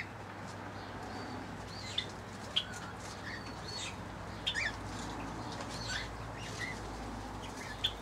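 Aviary birds giving scattered short, high chirps and tweets, with a couple of brief sharp sounds about two seconds in, over a faint steady background hum.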